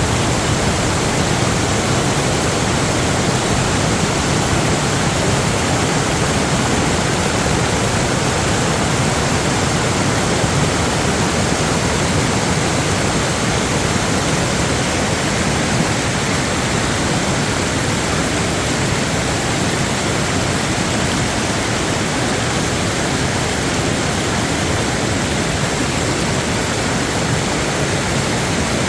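Rushing water: a loud, steady, even rush of floodwater with no breaks or separate sounds.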